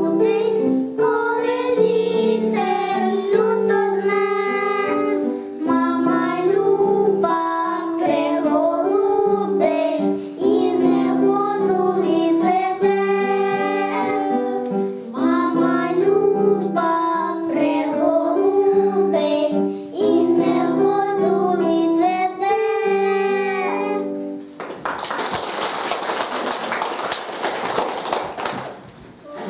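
Two young girls singing a song together over instrumental accompaniment. The song ends about 25 seconds in, and a few seconds of applause follow.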